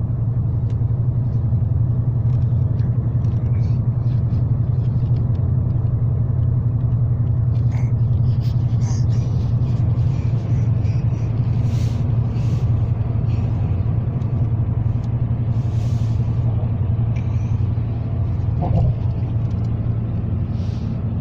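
Steady low rumble of a car's road and engine noise heard from inside the cabin while driving. A few short, higher vocal sounds from a baby come and go over it.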